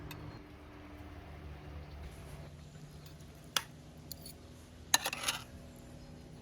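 Cutlery and dishes clinking: one sharp clink about three and a half seconds in, then a short clatter about five seconds in.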